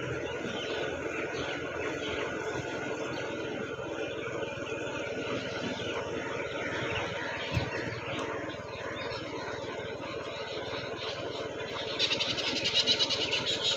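Outdoor road noise with a steady engine hum, under the footfalls of a group jogging on asphalt. Near the end comes a fast, high rattle of clicks lasting a second or two.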